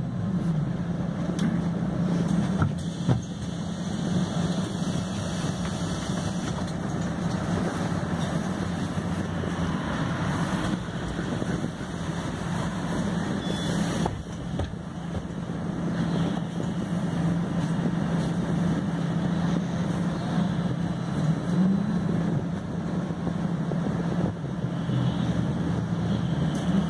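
Ride noise inside a MAN Lion's City Hybrid diesel-electric city bus on the move: a steady drivetrain hum over road and body noise, with a few light clicks and rattles in the first seconds and a short rising whine near the end.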